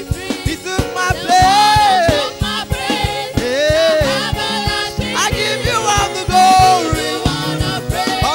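Live gospel worship band and singers performing a praise song: voices singing over the band with a steady drum beat.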